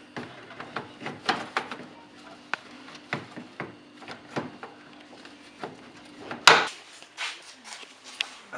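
Hard plastic parts of a car's air filter housing and intake duct being handled: irregular clicks and knocks of clips and covers, then one loud bang about six and a half seconds in.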